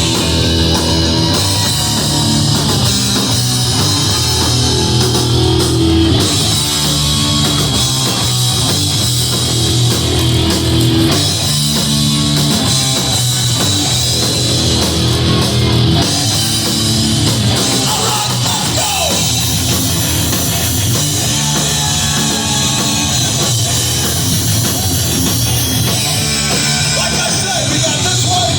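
Hardcore punk band playing live: loud distorted electric guitars, bass and drum kit, with shouted vocals.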